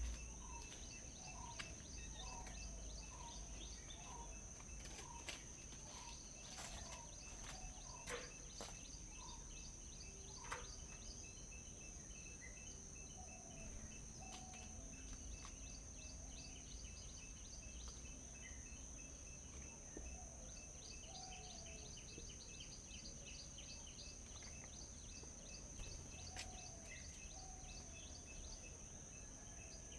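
Faint mix of small birds chirping over a steady high-pitched insect drone. One bird repeats a short note roughly once a second through the first eight seconds or so, and a few sharp clicks stand out.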